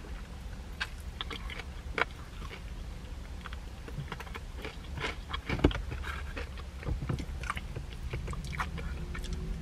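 A person biting and chewing crispy fried chicken close to the microphone: scattered wet crunches of the breaded crust, the loudest about two and five and a half seconds in.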